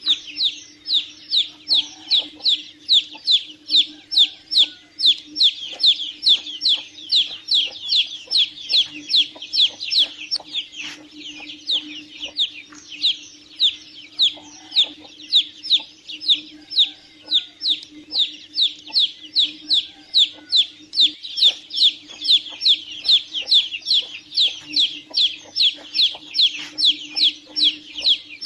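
Domestic chicks peeping without pause: a rapid stream of short, high-pitched, falling peeps from several chicks at once. A steady low hum runs underneath.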